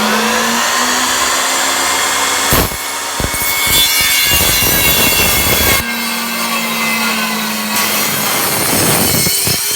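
Tabletop saw running, its spinning blade ripping lengthwise through a dried Christmas tree log. The blade bites into the wood about two and a half seconds in for some three seconds, the motor's steady hum giving way to a harsh cutting noise, then it runs free again.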